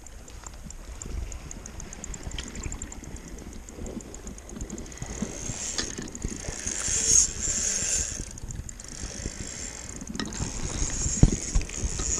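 Water slapping and knocking against the boat's hull by the camera, with the fast ticking of a fishing reel being cranked early on as a hooked fish is fought. A hissy rush comes around the middle, and one sharper knock comes near the end.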